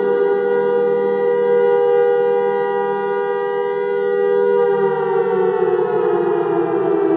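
Air raid siren wailing on a steady pitch, then falling in pitch from about five seconds in.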